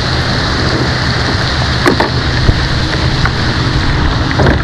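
Storm rain and wind making a steady loud hiss on the microphone, with a couple of sharp knocks about two seconds in and near the end.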